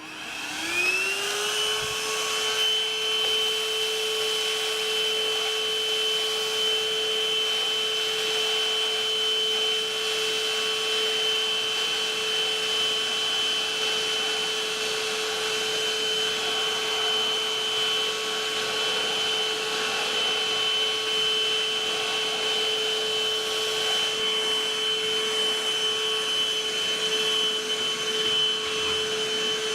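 Novete battery-powered handheld wet-and-dry vacuum cleaner switching on, its motor whine rising over the first second or so, then running steadily with a high whine over the rush of air.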